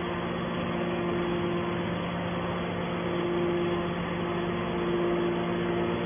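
Hydraulic power unit of a scrap metal baling press running steadily. Its electric motor and pump give a constant low hum, with a higher tone that fades in and out.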